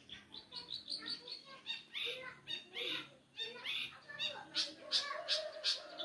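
Caged long-tailed shrike (cendet) singing in full voice: a rapid, unbroken run of varied short chirps, whistled notes that rise and fall, and sharp high calls.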